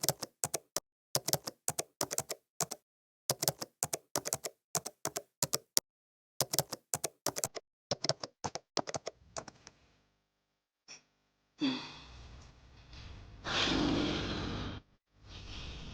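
A quick, irregular run of sharp clicks and taps, several a second, that stops about nine seconds in. After a pause comes soft hissing rustle in a few stretches.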